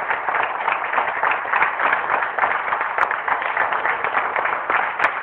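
A roomful of dinner guests applauding: dense, steady hand-clapping.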